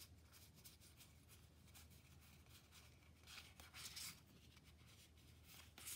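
Near silence, with faint rustling of Magic: The Gathering cards being slid and shifted between hands as a stack is sorted, clearest a little past the middle.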